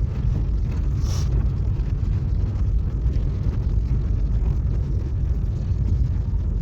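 Car driving on a snowy road, heard from inside the cabin: a steady low rumble of engine and road noise, with a short hiss about a second in.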